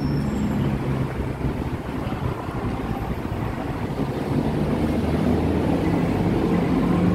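Steady low noise of busy multi-lane city road traffic: cars, buses and motorbikes running together with no single vehicle standing out.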